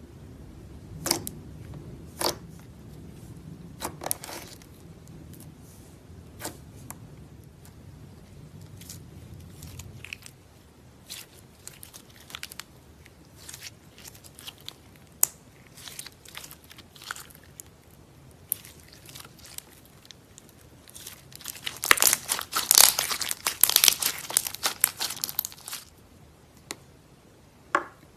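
Slime being squeezed and pulled by hand, making scattered sticky pops and crackles that turn into a dense run of crackling about three-quarters of the way through.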